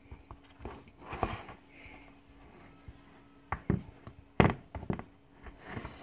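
Wooden spoon knocking and scraping as sticky cake batter is spread into a cake mould: scattered taps and knocks, the loudest about four and a half seconds in.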